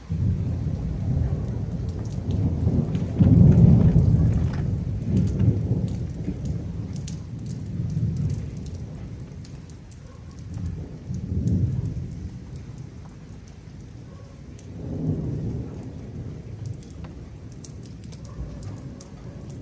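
Thunder rumbling over falling rain. The deep rumble sets in suddenly, is loudest a few seconds in, then comes back in weaker waves, with the patter and crackle of raindrops throughout.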